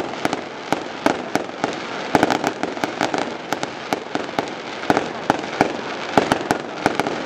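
Fireworks going off: a quick, irregular string of sharp bangs over a steady hiss of burning fountains.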